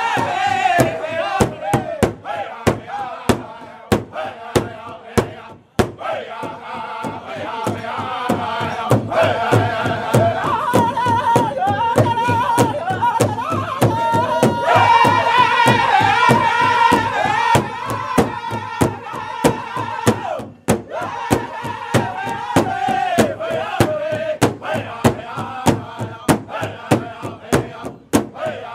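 Powwow drum group: several men singing in unison while beating one large shared drum together in a steady, even beat of about two strikes a second. The singing falls away briefly about six seconds in and again about twenty-one seconds in while the drumbeat carries on.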